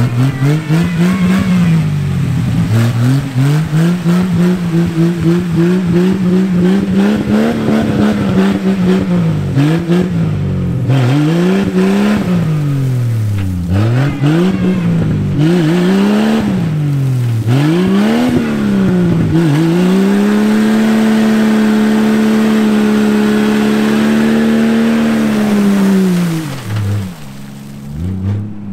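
Jeep Wrangler TJ engine revving up and down over and over as it pushes through a mud hole. It is then held at high, steady revs for several seconds before letting off near the end.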